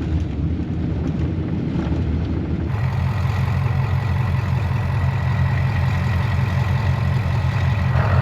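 The 7.3 Powerstroke V8 turbo-diesel of a 1996 Ford F350 running steadily at cruising speed, with road noise. The low engine hum becomes heavier and changes abruptly about three seconds in.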